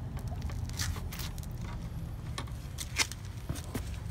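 Rubber lip strip being worked onto a car's bumper edge and its red adhesive liner peeled away: scattered short scrapes, crackles and clicks over a steady low rumble.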